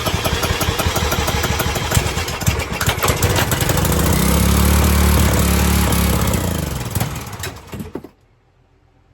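3.75 HP Briggs & Stratton pressure-washer engine spun over with a drill: it sputters and pops, catches and runs for a few seconds, then winds down and dies about eight seconds in. It will not stay running on brake cleaner sprayed into its dirty carburetor.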